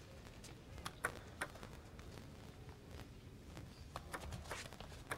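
Table tennis ball clicking: a few sharp knocks about a second in, then a quickening run of ball-on-bat and ball-on-table clicks as a rally starts near the end, over a faint hall hum.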